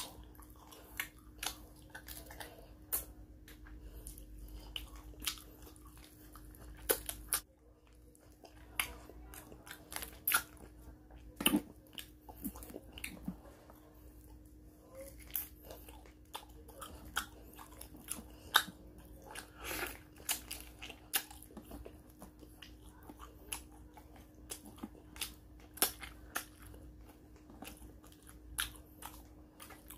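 Close-up chewing and biting of fried fish eaten by hand, with many short, crisp clicks and smacks at an irregular pace, over a faint steady hum.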